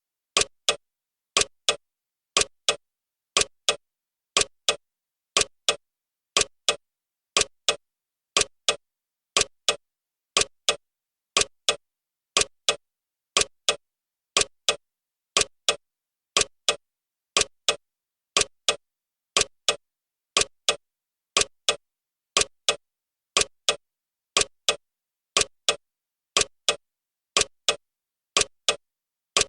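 Clock ticking sound effect of a countdown timer: sharp, evenly spaced ticks in a steady rhythm.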